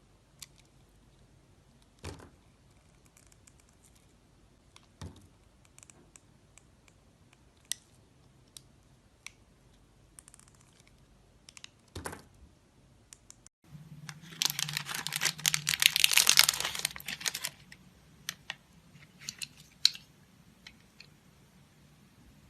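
Knife carving a bar of soap: scattered small clicks and a few soft knocks, then a few seconds of dense, crisp scraping as the blade shaves through the soap, followed by more light clicks.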